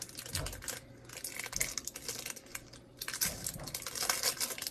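Plastic packaging crinkling and rustling in the hands as it is worked at and pulled open, in irregular crackly bursts, with a couple of soft low knocks, one about half a second in and one a little after three seconds.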